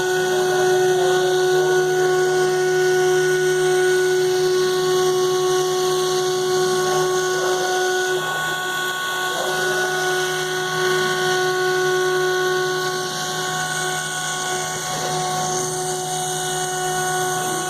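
CNC router spindle running through a cut, with a steady whine over a hiss of cutting noise.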